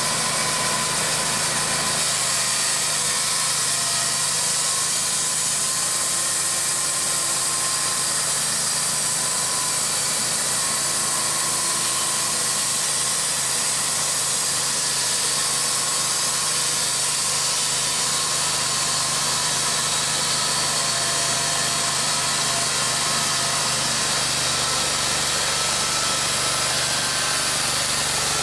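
Timberking B-20 portable bandsaw mill running steadily, its engine and band blade sawing through a walnut log.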